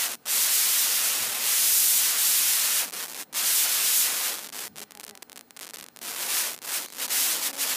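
Loud scratchy rubbing noise, close and dense for about three seconds, then in short broken bursts with brief gaps.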